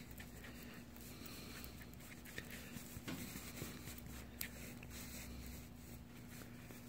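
Faint scraping and a few light taps of a small tool stirring stiff two-part epoxy, over a steady low hum.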